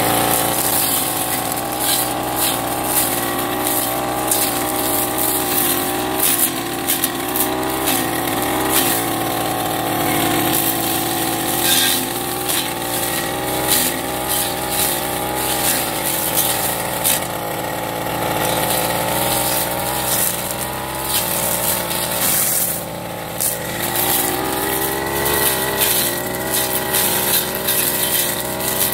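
Petrol backpack brush cutter running at high speed while cutting tall cogon grass. Its engine note wavers as the load changes, with frequent sharp ticks and crackles as the cutting head strikes the stems. The engine note dips briefly about three-quarters of the way through.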